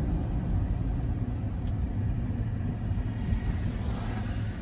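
Road and engine noise inside a moving vehicle's cabin: a steady low rumble, with the rushing sound of another vehicle passing alongside about four seconds in.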